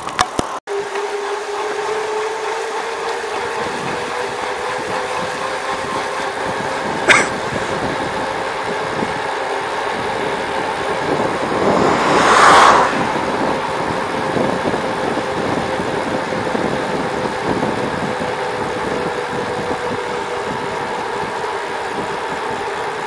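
Bicycle rolling along a paved road: steady road and wind noise with a constant hum. There is a sharp click about seven seconds in, and a passing vehicle swells and fades about twelve seconds in.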